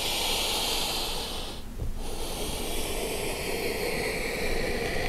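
A person's deep breathing close to the microphone during a yoga pose: one long breath, a brief pause about two seconds in, then another long breath.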